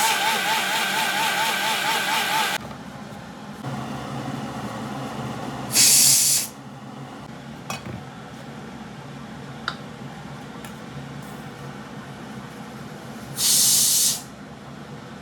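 Mixer grinder motor running with a wavering whine, then switched off about two and a half seconds in. Later come two short, loud hisses, several seconds apart.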